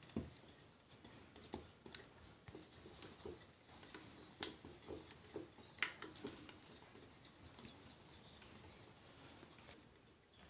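Small wire whisk beating thin rice-and-coconut batter in a glass bowl: faint, irregular clicks and scraping of the wire against the glass, with a few sharper clinks.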